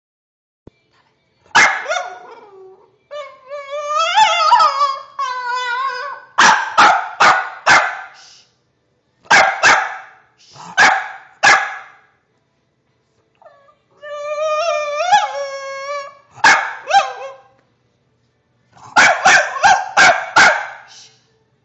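A deaf bulldog screeching: two long, high, wavering cries that rise in pitch, broken up by quick runs of short, sharp barks, three to five at a time. The owner thinks he makes these screeches because he is deaf.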